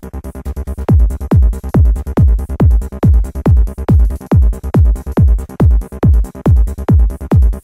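Electronic progressive/trance beat programmed in Reason's Redrum drum machine at 140 BPM: a pitch-dropping kick drum on every beat over quick hi-hat ticks and a deep bass. The beat is thinner for the first second or so, then the kick and bass come back in full.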